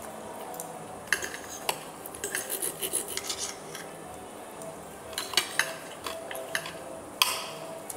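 Metal fork and steak knife clinking and scraping on a ceramic plate while cutting and picking up food: scattered light clicks and scrapes, the sharpest one near the end.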